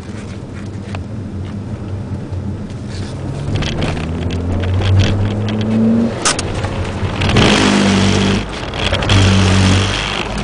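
Ford Puma 1.7 VCT four-cylinder engine heard from inside the cabin, revving up with a rising pitch, then easing off and pulling again. About seven seconds in, a loud rushing hiss of tyres on the wet track joins it for about three seconds.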